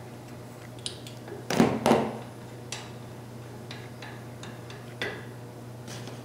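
Metal clicks and clinks of a wrench and the kingpin bolt and nut being handled, with a louder double clatter about one and a half seconds in and a few lighter clicks after.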